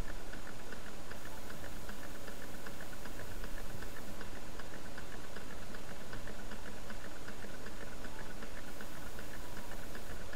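Small low temperature differential beta Stirling engine running on the heat of a hot cup of tea, its flywheel spinning and its linkage making a fast, even ticking.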